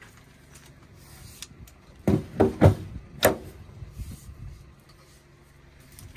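EV rapid-charger connector being pushed into its holster on the charging post: three quick clunks about two seconds in, then one more a little after three seconds.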